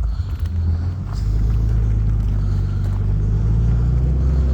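Car engine running at a steady low idle shortly after a start, still cold. A deep, even rumble that firms up a little about a second in.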